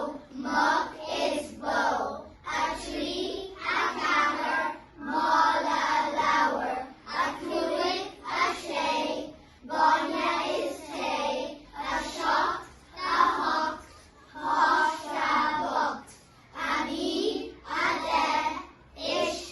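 Children singing without accompaniment, in short phrases with brief pauses between them.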